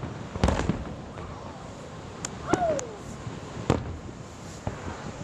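Aerial fireworks going off: a few separate bangs about half a second in and again near the end, with a quick run of crackling pops in the middle.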